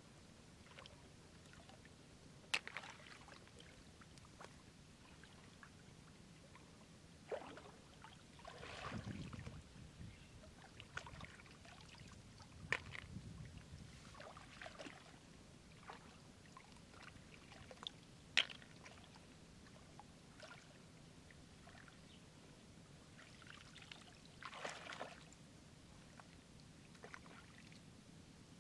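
Hands groping and sloshing through shallow muddy water, faint and scattered, with short splashes and a few sharp clicks, the loudest about 18 seconds in.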